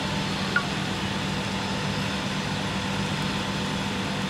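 Vehicle engine idling with a steady low hum, with one brief sharp blip about half a second in.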